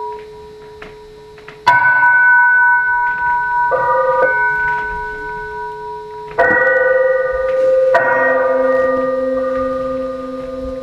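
Bell-like tones in the stage music: a loud strike a little under two seconds in, a shorter one near four seconds, and two more at about six and a half and eight seconds. Each rings on with several pitches and slowly fades.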